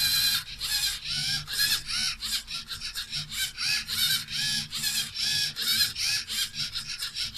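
LEGO EV3 motors and Technic gearing on a home-built CNC pen plotter whining in quick short moves, each one rising and then falling in pitch, a few a second, as the machine traces a Greek key pattern.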